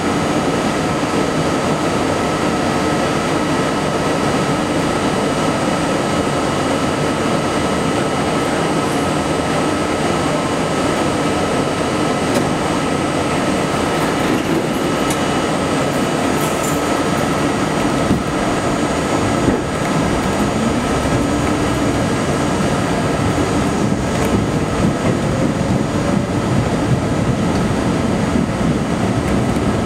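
Interior of a Budd R32 subway car, heard from the front window: a steady electrical hum with constant tones while the train stands still. About two-thirds of the way in there are a couple of knocks, then the train starts off and its traction motors rise in pitch as it accelerates.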